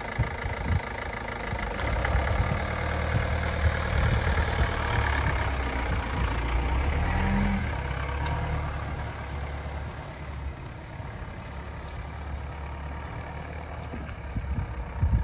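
Ford Transit van's engine pulling away and driving past, growing louder as the van passes close by, with a brief rise in engine pitch about seven seconds in, then fading as it drives off. A short low thump comes at the very end.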